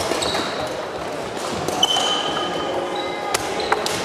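Badminton rally: a few sharp racket strikes on the shuttlecock, and short high squeaks of court shoes on the wooden sports-hall floor.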